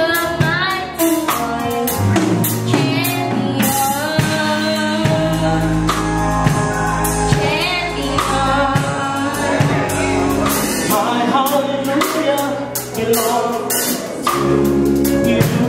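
Gospel song with a young girl singing lead into a microphone over a backing with a regular drum beat and bass.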